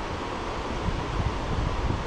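Wind gusting across the microphone with low buffeting that strengthens about a second in, over a steady rush of flowing river water.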